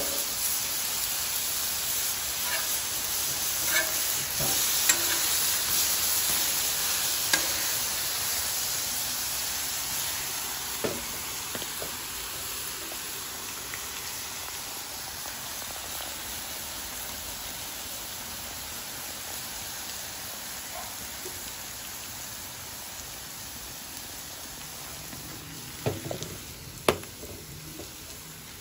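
Venison burger patties sizzling on a hot Blackstone flat-top griddle, a steady frying hiss that slowly fades. A few light clicks sound early on, and two sharper knocks come near the end.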